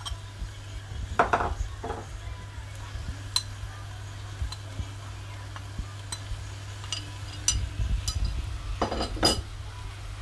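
Kitchen utensils clinking and scraping against dishes and a pan as spices and ingredients are added, with louder scrapes about a second in and again near the end. A steady low hum runs underneath.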